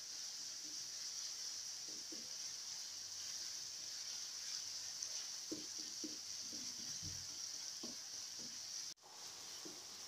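Minced beef frying in a non-stick pan, with a steady high sizzle as it browns. A spatula stirs and scrapes through the meat a few times, mostly in the second half. The sound cuts out briefly near the end.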